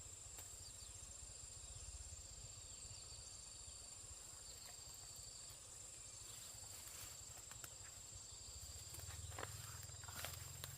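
Faint, steady high-pitched chirring of forest insects, with a few soft clicks and rustles near the end.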